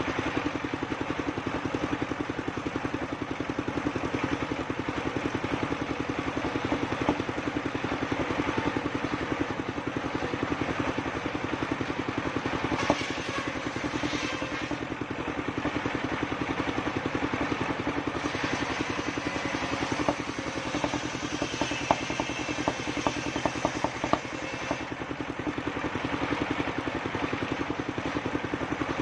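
Engine driving a homemade circular sawmill, running steadily at an even pace. About two-thirds of the way through comes a short run of sharp knocks.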